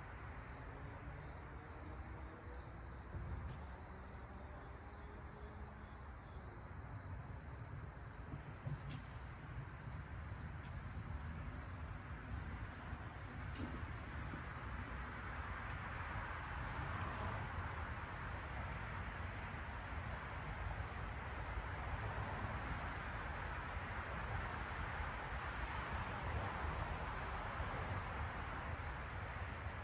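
Insects chirring steadily at a high pitch, an even pulsing trill that carries on throughout, over a low background rumble.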